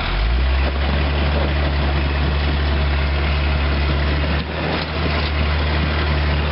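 Modified Jeep Cherokee's engine running at low revs as it crawls over boulders: a steady low drone that picks up just after the start and dips briefly a little past the middle.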